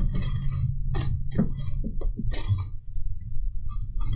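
Hard clinks and rattles of a 3D-printed bearing wheel and a length of extrusion rail being handled and fitted together, a cluster of sharp clinks in the first three seconds, over a steady low hum.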